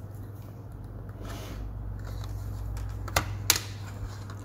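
Handling noise from a pocket digital multimeter and its test leads: soft rustling, then two sharp clicks about three seconds in, a third of a second apart, over a low steady hum.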